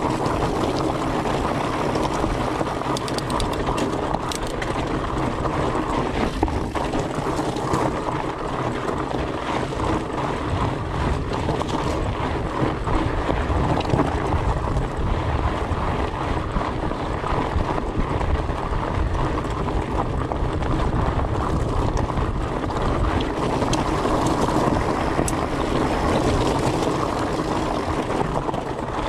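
A 2018 Fatback Rhino FLT fat bike riding over loose, rocky desert singletrack: its 26x4.8 Maxxis Colossus tyres crunching over gravel and stones, with wind rushing over the camera microphone, a steady dense noise. A few sharp clicks come about three to four seconds in.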